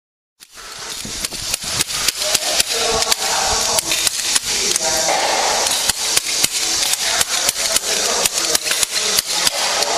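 Long-handled PowerScraper blade being jabbed into hardened concrete on a concrete floor, chipping it off: a rapid run of sharp scraping strikes, about three a second, over gritty scraping. It starts abruptly about half a second in.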